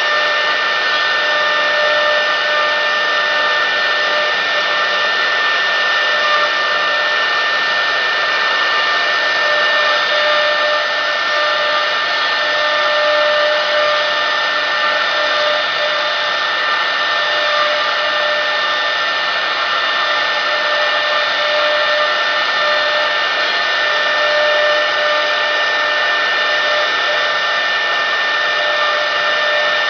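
CNC router spindle running at high speed, a steady high-pitched whine with a hiss, as its small bit carves a wooden workpiece turned on the rotary axis.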